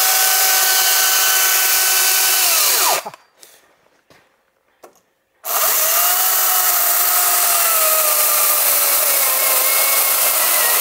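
Makita MUC019GZ 40V cordless rear-handle electric chainsaw running at full speed, a steady motor-and-chain whine. About three seconds in it winds down and stops. After about two seconds of quiet it starts again and runs on, its pitch dipping and wavering slightly.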